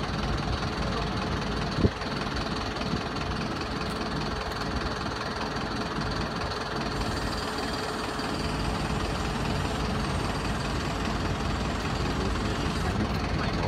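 Diesel engine of a Mercedes-Benz tow truck idling steadily. A single sharp metallic knock about two seconds in.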